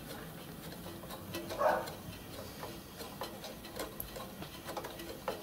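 Light, irregular clicks and taps of small metal pipe fittings being handled and fitted under a miniature steam locomotive's footplate, with a brief rub about one and a half seconds in.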